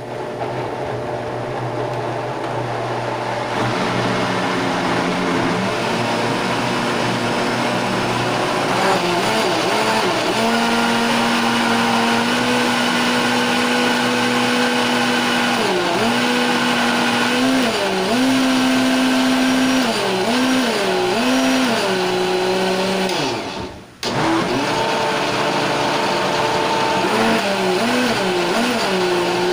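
Countertop blender running at high speed, puréeing cooked squash and milk into a smooth soup. Its motor pitch dips and recovers several times. It stops for a moment near the end, then starts again.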